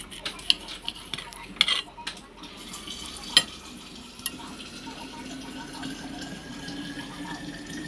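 Knife and metal fork clicking and scraping against a ceramic plate while cutting through a thick steak, with a few sharp clinks in the first half, the loudest at about three and a half seconds. A faint steady hum follows in the second half.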